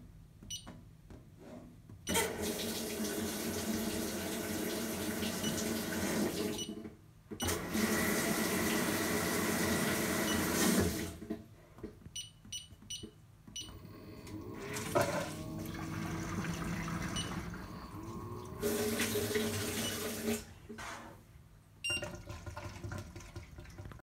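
Water rushing into a Fisher & Paykel Aquasmart washing machine as its water valves are switched on one at a time from the service-menu component test. There are four bursts of a few seconds each, with light clicks of the control-panel buttons in the gaps and a short rising tone twice in the second half.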